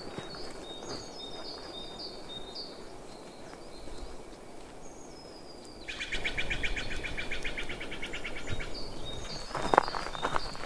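Small birds chirping in short repeated high notes, with a fast, even trill lasting about two and a half seconds past the middle. There is a single short knock near the end.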